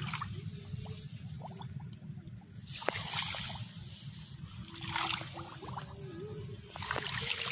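Footsteps wading through a flooded rice paddy, water and mud sloshing with each step, about every two seconds, over a steady low rumble.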